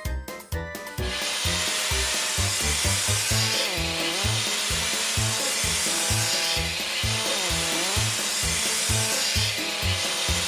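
A cartoon spray sound effect: a steady hissing spray that starts about a second in and swells about every three seconds, over background music with a steady bass beat.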